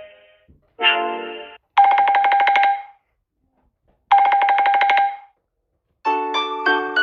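Samsung Galaxy S8 ringtones playing one after another. A short musical tone is followed by a rapid trilling telephone-style ring, heard twice about two seconds apart with silence between. A new piano-like tune begins near the end.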